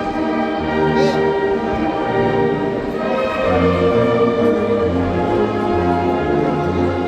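A Sierra Mixe philharmonic band, a wind band of brass and woodwinds, playing held chords. About halfway through, a bass line starts moving in steps under them.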